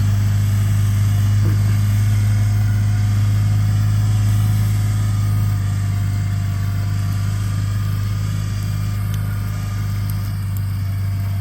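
An engine idling steadily with a deep, even hum, easing slightly about halfway through.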